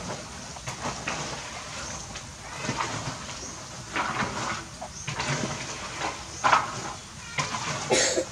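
Baby pigtail macaque making a series of short, squeaky calls, each a second or less, with a sharper, louder sound near the end.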